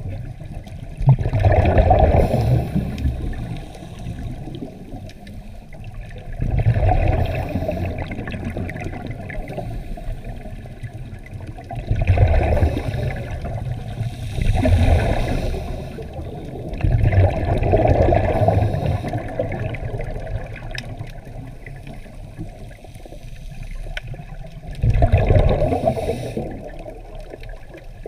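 Scuba diver's exhaled breath bubbling out of the regulator, heard underwater: gurgling bursts of a second or two, about six times, every few seconds, over a low steady rumble of water.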